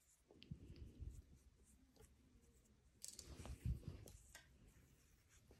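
Faint rustling and light clicks of hands sewing yarn through knitted stitches on a wooden knitting needle during an Italian bind-off, with a louder rustle about three seconds in.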